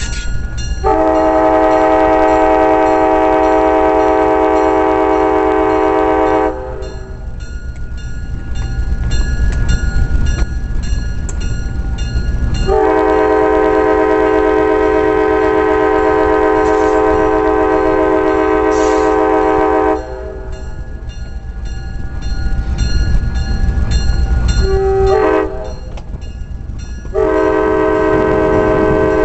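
EMD GP9 diesel locomotive's air horn, several notes sounding together, blowing the grade-crossing signal: two long blasts, a short one, then a final long blast starting near the end. Under it runs the steady low rumble of the locomotive's diesel engine.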